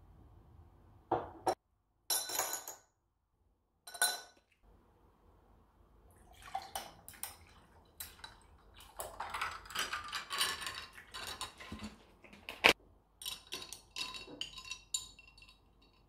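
A glass tumbler set down on a table with a clink, then iced tea poured from a bottle into the glass, splashing, with many small clinks and one sharp knock about three-quarters of the way through.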